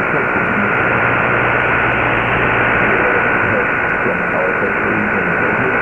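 A weak shortwave AM broadcast received on an Icom IC-R8600 in synchronous AM mode: steady static hiss, cut off above about 3 kHz by the receiver's filter, with a steady high whistle. A voice is barely audible under the noise.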